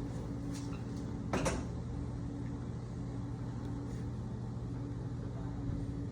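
Steady low hum with a faint constant tone, and one short knock about a second and a half in.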